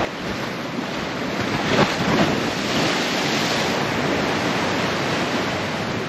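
Sea waves washing onto the beach in a steady surf, with wind on the microphone.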